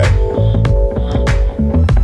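Background music with a heavy bass and a steady beat over held synth chords.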